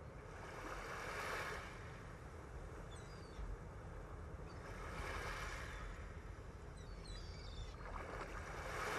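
Sea waves washing in, the sound swelling and fading about every four seconds.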